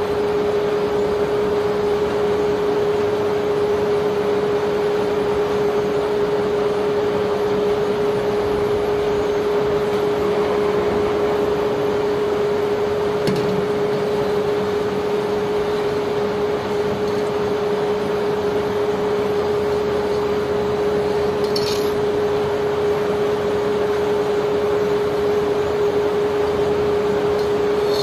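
Barge sand-unloading machinery running with a steady hum and one constant droning tone, under a continuous rushing noise of the wet sand load being unloaded. A few faint, brief clinks come through now and then.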